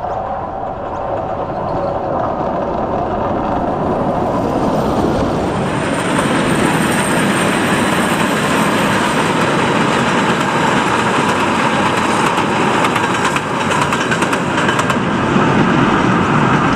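Small narrow-gauge steam train running past close to the track. The sound grows louder over the first six seconds or so, and there is a run of clicks near the end.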